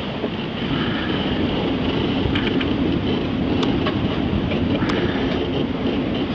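Strong wind buffeting the microphone over the sea rushing past a sailing yacht's hull: a steady rushing noise with a few faint clicks.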